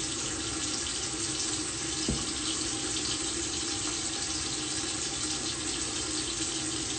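Water running steadily from a bathroom tap, an even hiss.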